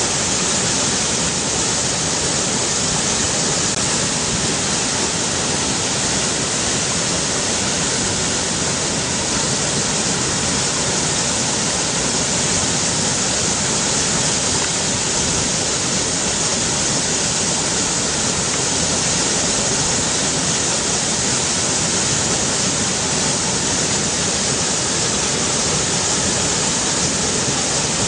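River water rushing steadily, a constant even hiss of flowing water with no breaks.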